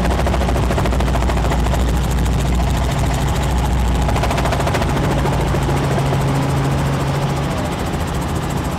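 Light helicopter in flight, heard from inside the cabin: a steady, loud drone of rotor and engine with a fast, even rotor beat.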